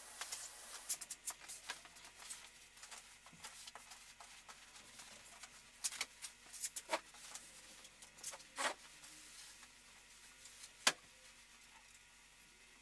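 Faint handling sounds as heavy cloth is gathered and moved: soft rustling with a scattering of light taps and knocks, the loudest about eleven seconds in, over quiet room tone.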